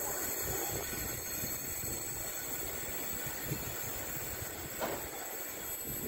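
Thalys high-speed train rolling slowly along curved track as it approaches, a steady rail rumble with one brief knock about five seconds in.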